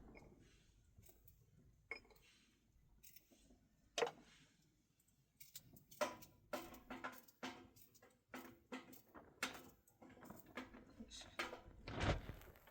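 Irregular knocks and clatter of things being handled: a few single knocks at first, then a quick uneven run of knocks from about halfway, with a heavier thump near the end.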